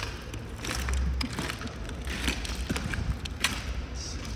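Footsteps crunching and clattering over loose, wet track ballast stones in makeshift plastic-bag boots, a run of sharp irregular clicks, with a low bump about a second in.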